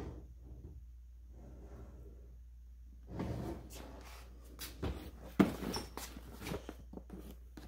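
A cardboard box being handled and turned over, with rustling, rubbing and scattered knocks. One sharp knock about five and a half seconds in is the loudest.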